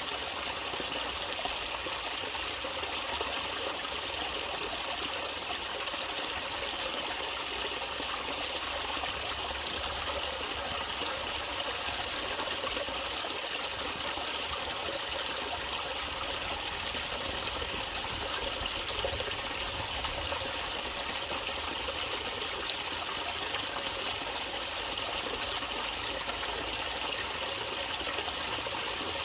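Water trickling and running steadily over rocks in a stream, a continuous even babble.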